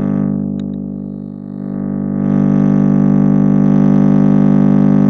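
A loud, steady low drone with many overtones, held at one pitch, growing louder about two seconds in.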